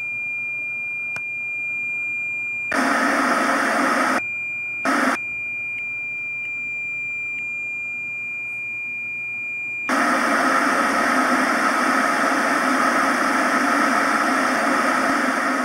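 Television test-pattern tone, a steady high beep, twice broken by a burst of TV static hiss, then giving way about ten seconds in to continuous static hiss.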